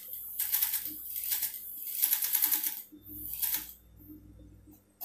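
TYPICAL industrial sewing machine stitching in about four short runs that start and stop. Each run is a fast, even clatter of the needle, over the low hum of its motor. The runs end a little under four seconds in.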